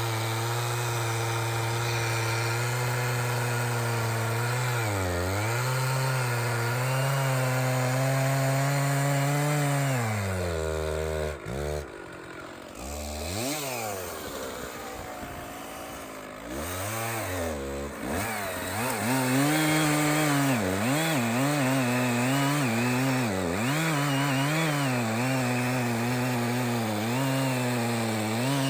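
Stihl 066 two-stroke chainsaw running at high revs in a big red oak log, its pitch dipping and wavering as it loads up in the cut. About eleven seconds in the revs fall away. The saw is blipped up and down a few times, then runs back up at full throttle into the cut.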